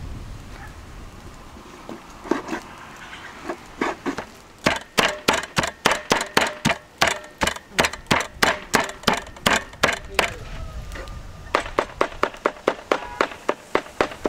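A large knife chopping roasted beef on a wooden cutting board. After a few scattered knocks comes a quick, even run of chops, about three a second, some with a light metallic ring from the blade. It breaks off for about a second and a half and then a second run follows.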